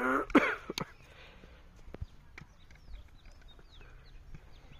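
A child's short voiced call at the very start, with a couple of sharp clicks, then a quiet stretch of scattered light clicks and faint high chirps.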